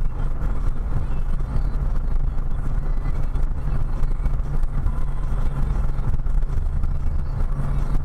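Car driving at a steady speed, its engine and tyre noise heard from inside the cabin as a continuous low rumble.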